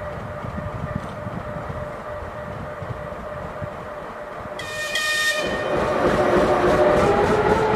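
TGM6V diesel-hydraulic shunting locomotive running as it approaches, at first a low engine rumble. Just after halfway it gives a short horn blast of under a second, then the engine runs much louder and closer.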